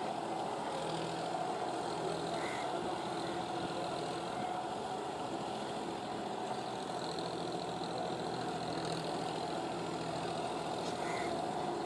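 John Deere 5045D tractor's three-cylinder diesel engine running steadily under load, pulling a rotary tiller through wet mud on cage wheels.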